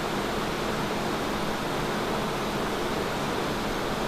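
Haas TM-1P CNC mill drilling a center hole in 304L stainless steel under flood coolant: a steady, even rush of coolant spray over the running spindle, heard through the closed enclosure doors.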